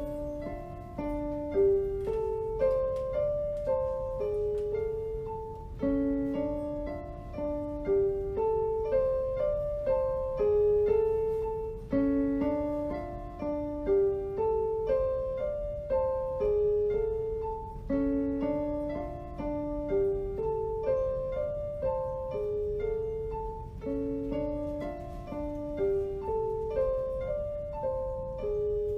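Instrumental piano music: a gentle mid-range melody of single notes whose phrase repeats about every six seconds, each time starting on a lower note.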